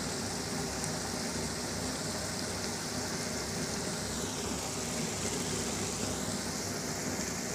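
A thick curry of taro stolons and small shrimp sizzling and bubbling steadily in a wok on the stove.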